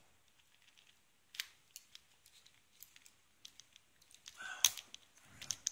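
Small metal clicks and rattles of a Best 6-pin padlock and its keys being handled while the interchangeable core is put back in and the lock is closed. There is a single sharp click about a second and a half in, and a louder flurry of clicks about four and a half seconds in.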